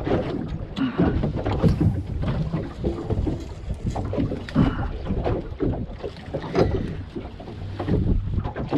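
Wind buffeting the microphone outdoors on the water, a gusty low rumble broken by irregular knocks and thumps.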